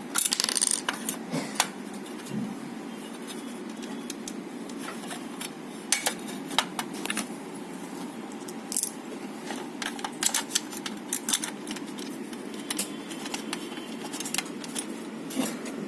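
Light clicks and metallic clinks at irregular intervals as small parts of a plastic light fixture and its screws are handled, over a steady low hum.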